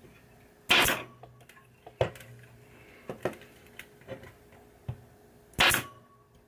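Two short, loud bursts about five seconds apart, with light clicks and taps between them, from hands-on work laying the wiring harness on a pinball playfield.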